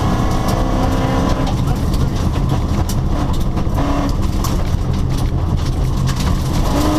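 Rally car engine running, its note shifting in pitch a few times over a constant low rumble.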